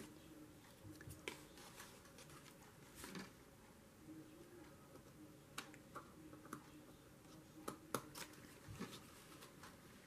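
Scissors snipping a white paper support strip: faint, a few short sharp snips spaced through, the loudest about eight seconds in.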